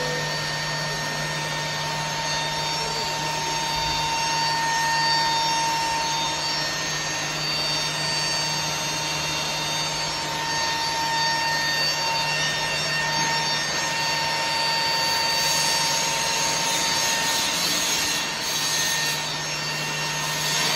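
Ribbon blender on a test run: its three-phase induction motor and gear reducer turn the mixing ribbons with a steady hum and whine, with a little more hiss in the last few seconds.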